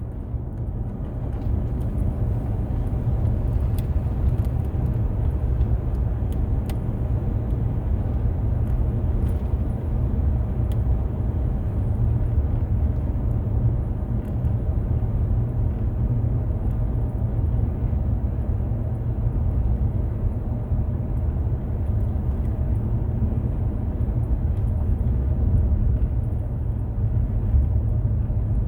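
Steady low rumble of a Nissan Frontier pickup truck driving, engine and road noise together, with a few faint ticks in the first ten seconds or so.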